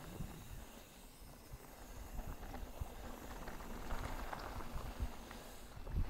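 Mountain bike rolling over a dirt and rock trail: tyre crunch with scattered clicks and knocks over a low, uneven rumble.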